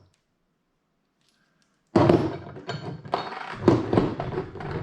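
Small hardware parts of a highway peg kit (nylon lock nuts, washers, brackets) being handled on a work surface: after near silence, a rapid run of knocks and clatters starts about two seconds in, some with a faint metallic ring.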